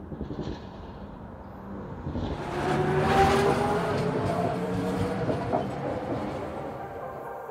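Light-rail tram passing through an intersection, its rolling noise swelling about two seconds in and loudest around three seconds, with a faint, slowly rising whine, then easing off.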